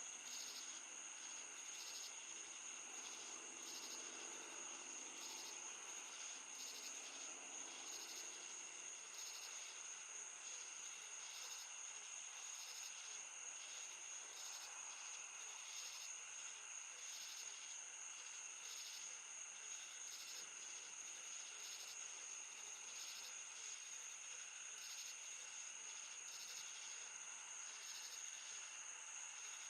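Night chorus of crickets and other insects: a steady high trill under a short chirp repeating about once a second.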